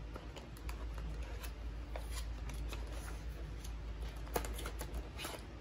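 Clear plastic accordion file of sticker packets being handled: its plastic pockets are flipped through and rustled, with many light clicks and taps and one sharper click about four seconds in.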